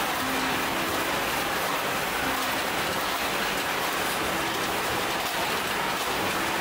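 Steady hiss of ice cream production-line machinery, with a few faint short musical notes over it.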